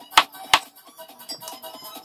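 A kitchen knife chopping raw potato on a cutting board: two sharp chops in the first half-second. Quiet background music plays underneath.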